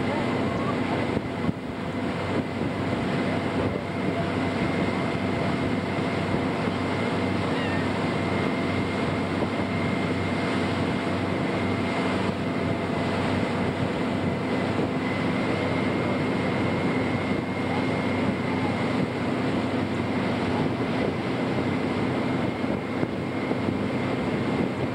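Motorboat engine running steadily at speed while towing, with rushing water from the wake.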